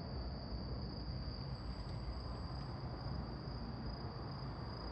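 Crickets trilling at a steady high pitch over a steady low rumble.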